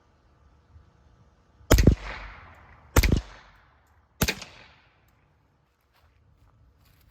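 Three suppressed .22 LR pistol shots from a Ruger Mark IV 22/45 Lite fitted with a CMMG Defcan-22 suppressor, firing CCI Mini-Mag rounds. The shots come about 1.3 seconds apart, each a sharp crack followed by a fading echo.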